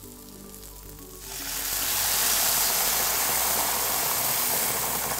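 Wine poured into a very hot pan of onions hits the metal and sizzles loudly with a rush of steam, starting about a second in and holding steady. This is deglazing on high heat to boil off the wine's alcohol.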